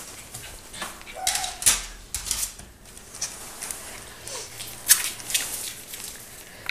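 Five-week-old West Highland White Terrier puppy's claws clicking and tapping irregularly on a hardwood floor, with one brief squeak about a second in.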